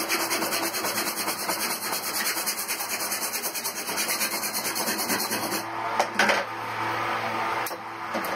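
Hacksaw cutting through a metal glass-door sliding channel with quick back-and-forth rasping strokes, which stop a little past halfway. A loud clatter of metal follows about six seconds in, and a lighter knock near the end.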